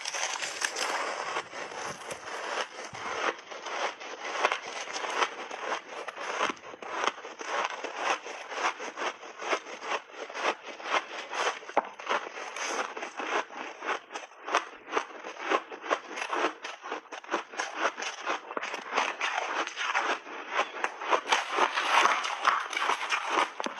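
Close crunching of refrozen mixed berries and chunks of ice being bitten and chewed: a steady run of sharp, crackling crunches, several a second, a little louder near the end.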